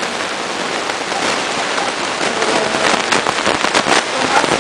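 Audience applauding: a steady dense crackle of many hands clapping.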